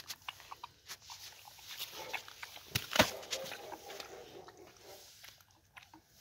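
Indian mastiff puppy eating from a metal bowl: chewing with repeated clicks and clinks against the bowl, and a sharp knock about three seconds in.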